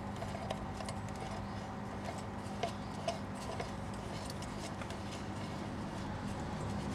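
A few faint, scattered metal-and-glass ticks as a camping gas lantern head is threaded onto a stove's gas valve, over a steady low hum.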